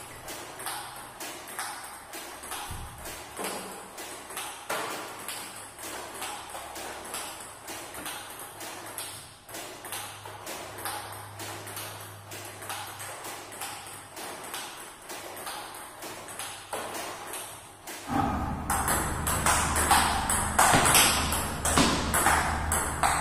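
Table tennis ball repeatedly struck by a bat faced with medium-pips rubber and bouncing on the table, fed by a ball robot: a steady run of sharp clicks, about two a second. About eighteen seconds in, a louder steady hum comes in under the hits.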